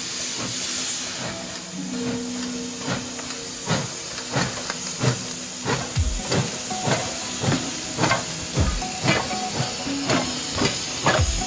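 Steam locomotive letting off a hiss of steam, then its exhaust chuffing in regular beats about twice a second as it pulls slowly past, the beats coming slightly quicker toward the end.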